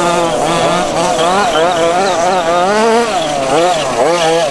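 Petrol two-stroke engines of several 1:5 scale off-road RC buggies racing, their pitch rising and falling as the throttles open and close.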